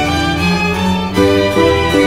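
Instrumental music with sustained melodic notes, the pitch changing every quarter to half second.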